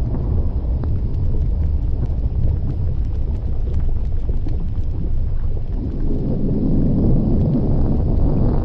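Erupting volcanic vent giving a deep, continuous rumbling roar with faint scattered crackles. It swells fuller and louder about six seconds in.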